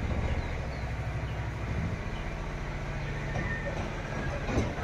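Steady low rumble of an engine running at idle, with a faint, brief extra sound near the end.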